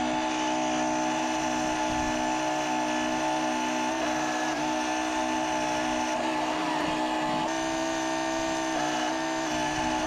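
Background music of held chords that change every second or so.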